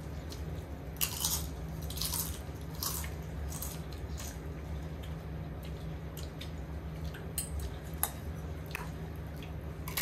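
People eating: wet chewing and mouth sounds with short clicks and scrapes of utensils on plates, most of them in the first few seconds, over a steady low hum.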